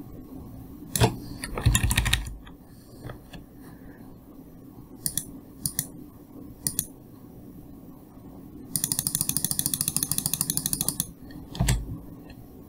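Computer keyboard and mouse clicks: scattered single keystrokes and clicks, then a fast, even run of about two dozen clicks lasting about two seconds near the end.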